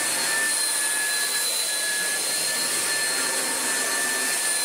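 Oreck XL upright vacuum cleaner running on carpet: a steady high-pitched motor whine over rushing air, running smoothly after restoration.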